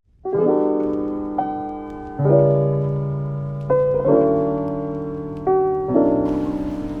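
Background music: slow piano chords, a new chord struck every second or two and left to ring and fade.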